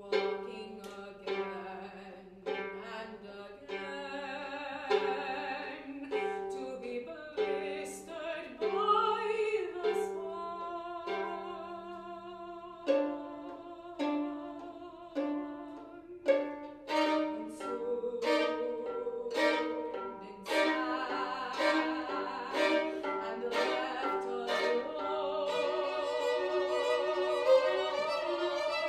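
Live contemporary classical duet for violin and voice: the violin plays many short, sharply attacked notes, and a woman sings long, classically trained notes with wide vibrato. The music grows fuller and more sustained about two-thirds of the way through.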